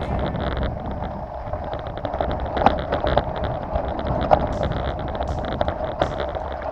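Wind buffeting the microphone over the rumble and rattle of a vehicle moving along a rough trail, with scattered sharp knocks and clicks.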